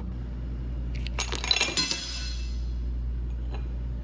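Ice cubes clinking as they are dropped into a small cauldron: a quick cluster of clinks with a short ring about a second in, then one more clink near the end.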